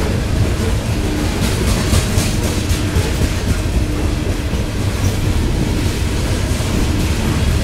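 Open-top coal cars of a CSX freight train rolling past: a steady rumble of steel wheels on rail, with a run of clickety-clack wheel clicks about two seconds in.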